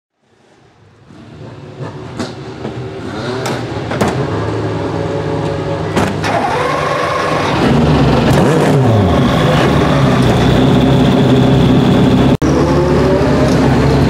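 Aston Martin Vantage GTE race car's twin-turbo V8 running at idle in the pit lane, fading in from silence, with a few sharp clicks early and throttle blips that rise and fall in pitch midway before it settles into a steady idle.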